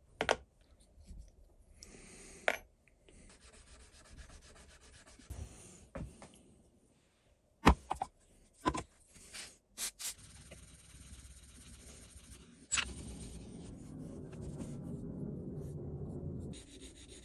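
Hand rubbing and scrubbing on a metal part of a height gauge being cleaned up, in several stretches, the longest and loudest one near the end. A few sharp clicks and knocks of the part being handled come in between.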